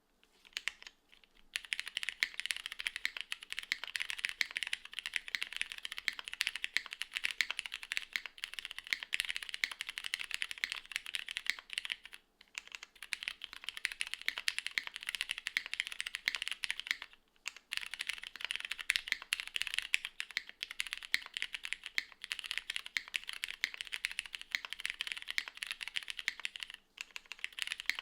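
Fast, continuous typing on a Lily R2 mechanical keyboard with Cherry Hyperglide Black linear switches and GMK Muted keycaps, built plateless and gasket-mounted with no foam. A dense run of keystroke clacks starts about a second and a half in, broken by brief pauses three times.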